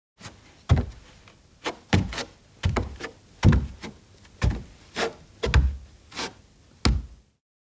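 Bare feet walking: about a dozen soft, heavy thuds of barefoot steps, roughly two a second, that stop a little after seven seconds.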